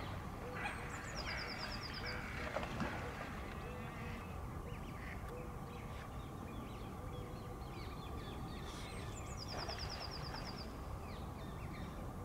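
Wild birds calling at a pond: short low calls repeated about once a second through the first half, scattered higher chirps, and a rapid high trill twice, over a steady low background hum.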